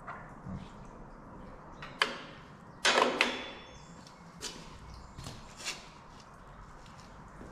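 Light clicks and a short metallic clatter with a faint ring, about three seconds in, from metal parts being handled on a mower's headstock, followed by a few smaller clicks.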